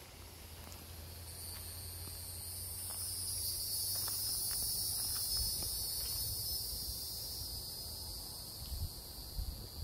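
Insects buzzing in a steady high chorus that swells louder after the first second or so and holds. A few low thumps come near the end.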